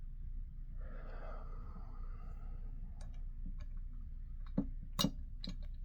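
Small metal parts of a door handle mechanism clicking and clinking as they are handled and fitted, a scattering of short sharp clicks in the second half, the loudest two a little before the end.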